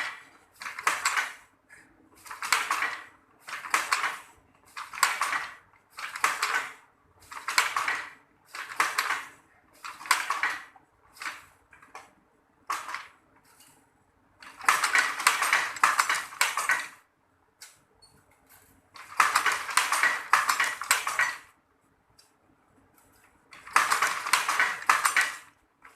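Traditional sarong-weaving loom at work, clattering in regular strokes about once a second. Later come three longer clattering runs of about two seconds each.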